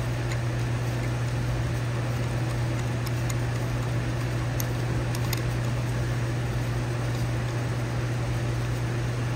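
A steady low machine hum, with a few faint light ticks.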